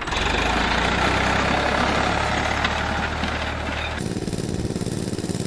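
Farmtrac 60 tractor's diesel engine running steadily as it pulls a disc harrow. About four seconds in it cuts to a small petrol-engine water pump running, its outlet gushing water.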